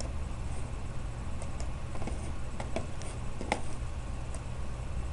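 A few scattered computer mouse clicks over a steady low electrical hum.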